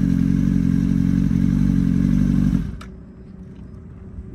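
Yamaha sport bike engine running steadily, then cutting off about two and a half seconds in, followed by a sharp click and a faint low rumble.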